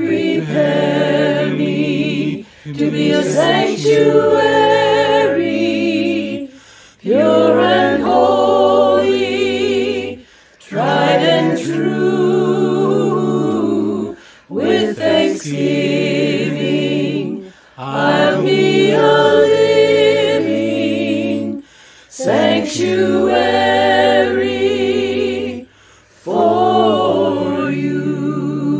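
Small mixed choir of men's and women's voices singing a slow song together, in phrases a few seconds long with short breaths between them, the voices carrying vibrato.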